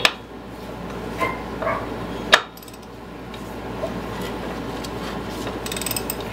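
Metal clinks and clicks of a hand tool as a small riding-mower engine is turned over by hand from underneath: a sharp click at the start, a few short ringing pings, a loud click a little over two seconds in, and a quick run of clicks near the end.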